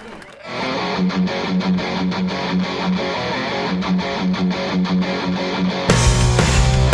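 Background music: a rock track with guitar begins about half a second in and turns heavier and louder, with a strong bass, about six seconds in.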